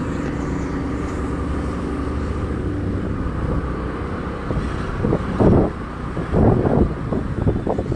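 Motor vehicle running steadily while moving along a city street, heard from on board as a low engine hum. Louder rough surges of noise come about five seconds in and again from six and a half seconds on.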